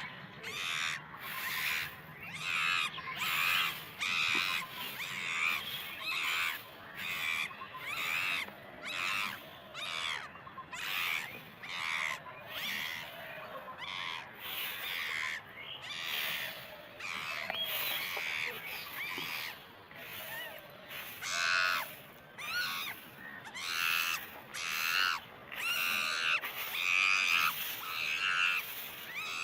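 Animal calls repeating in an even rhythm, a little more than one a second, with no break across the stretch.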